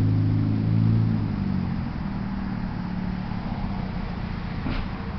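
A motor vehicle engine running with a steady low hum, dropping off about two seconds in to a quieter low rumble.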